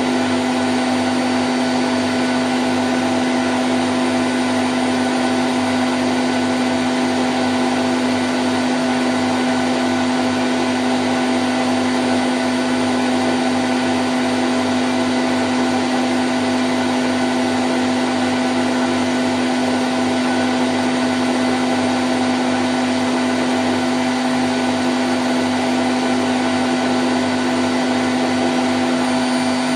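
Candy Grand O' F106 washing machine in its spin cycle at 1000 rpm: a steady, unchanging motor hum with one strong tone over a broad whoosh.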